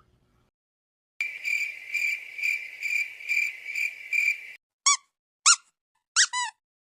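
Squeaky sound effects: a high, steady squeak pulsing about three times a second for several seconds, then four short, separate squeaks that bend in pitch.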